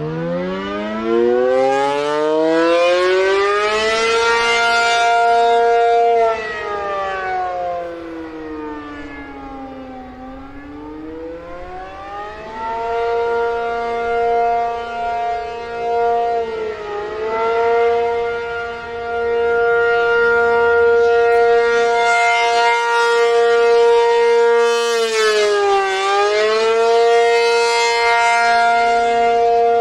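ACA P-50 outdoor warning siren sounding the attack signal. It winds up in pitch over the first few seconds, holds, sinks away and climbs back, then holds a steady wail with two brief dips, swelling and fading in loudness.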